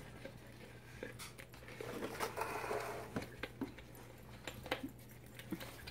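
Wipes being pulled out through the slotted lid of a plastic wipes canister. There is a soft rustle about two seconds in, followed by a few light clicks and taps.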